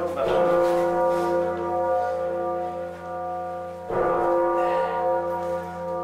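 Hosanna, a 7.5-ton John Taylor bourdon bell cast in 1935, swinging on its rope as it is rung up. It strikes twice, about four seconds apart. Each blow rings out in many steady overtones over a deep hum that lingers between the strokes.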